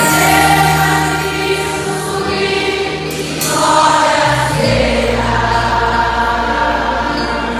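Church choir singing a gospel hymn over instrumental accompaniment, with long held low bass notes beneath the voices.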